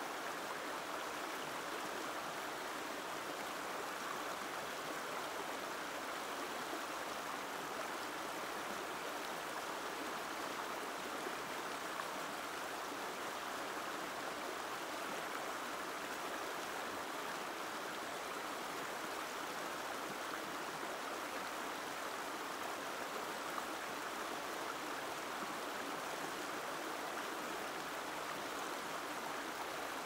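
Gentle stream of water flowing steadily: an even, unbroken rushing and babbling.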